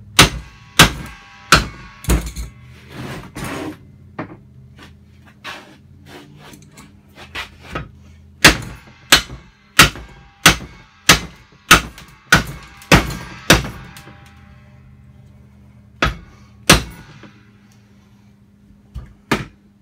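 Rubber mallet striking an LG top-load washer's clutch assembly to drive its shaft out. A handful of sharp knocks come first, then a steady run of about nine blows roughly every half second or so, then two more, over a faint steady hum.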